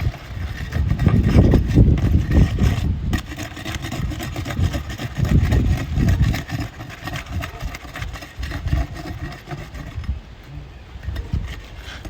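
Brittle Atlas Chalet asphalt shingles being lifted and worked by hand, with scraping and crackling from the stiff fiberglass mat, over a low rumble that is loudest in the first half.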